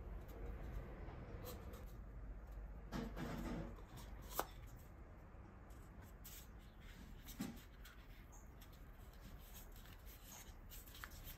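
Soft handling noises of a paper cup and a ball of oat cookie dough being pressed into it by fingertips: faint rubbing and scraping, with a short rustle about three seconds in, a sharp tap just after it, and a lighter knock midway.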